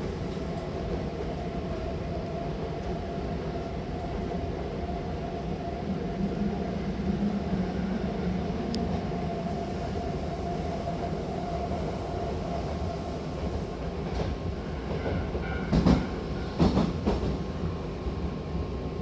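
A Hankyu Takarazuka Line commuter train running, heard from inside the car: a steady rumble of wheels on track with a steady whine that dies away about two-thirds of the way through. A few sharp clunks come near the end.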